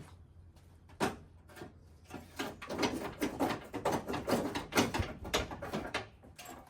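A stuck front-end part of a pickup being yanked and pried at: a sharp knock about a second in, then a dense run of rattling knocks and scrapes for about four seconds. The part will not come free because it is held by a tack weld.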